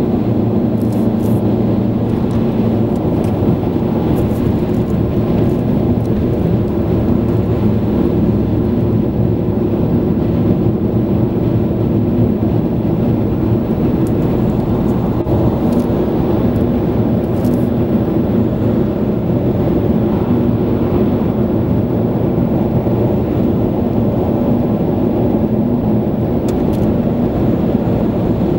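A car driving at motorway speed, heard from inside the cabin: a steady low rumble of engine, tyres and wind with an even hum.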